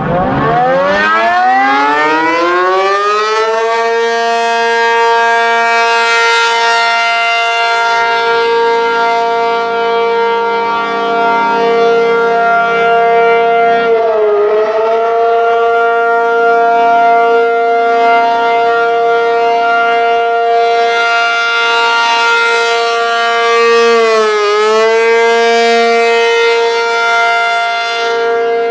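ACA P-50 siren sounding the Alert signal in a test. It winds up over about four seconds to a loud steady tone and holds it, with two brief dips in pitch about 14 and 24 seconds in.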